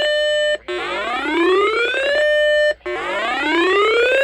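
Weather alert radio's alarm sounding for a flash flood warning: a siren-like whoop that rises in pitch for about a second and a half, holds a steady tone for half a second, breaks off briefly, and repeats about every two seconds.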